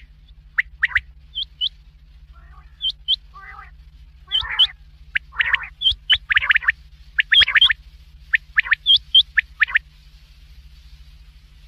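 Common quail calling: short, sharp whistled notes in quick pairs and triplets, mixed with softer, lower raspy calls, several birds overlapping in a dense stretch around the middle. A steady low hum runs underneath.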